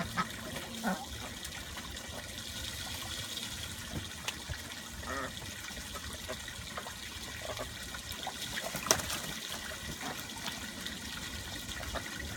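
Water running and splashing as ducks paddle and dabble in shallow water on a deck, a steady trickle with many small splashes. One sharp knock about nine seconds in.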